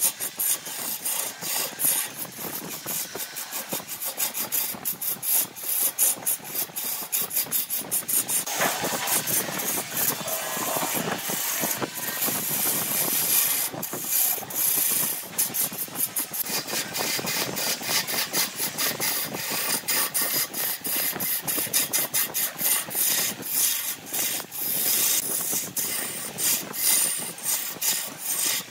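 Turning tool cutting into a spinning block of aged grapefruit wood on a wood lathe: a continuous, fast rattling scrape of steel on wood, fuller for a few seconds about a third of the way through.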